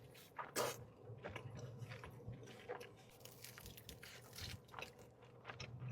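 A person biting into and chewing pizza sticks close to the microphone: irregular crunches and mouth sounds, the loudest bite about half a second in.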